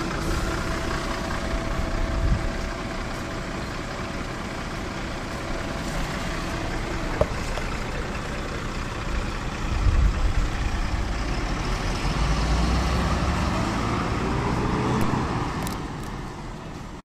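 MAN NL202 city bus with its D08 diesel engine running, with a steady whine until about seven seconds in. From about ten seconds the engine grows louder and its pitch rises as the bus pulls away, then the sound fades out near the end.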